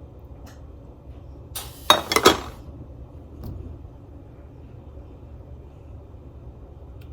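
A spoon clinking and knocking against a bowl in a quick cluster of sharp strikes about two seconds in, with a few faint ticks before and after, over a low steady hum.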